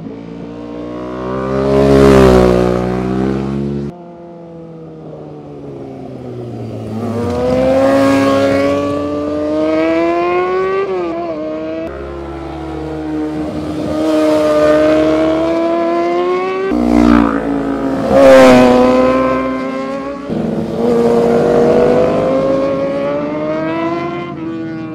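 Sport motorcycles riding past one after another through tight corners, their engines revving, rising in pitch as they accelerate and falling as they go by. The sound switches abruptly from one bike to the next several times, with the loudest passes about two seconds in and near eighteen seconds.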